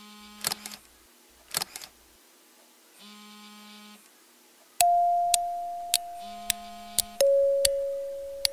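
Camera shutter clicks, at first in quick pairs with short low buzzing hums between them; about five seconds in, a sudden sustained electronic beep tone starts and slowly fades, steps down to a lower tone a couple of seconds later, with single sharp clicks over it.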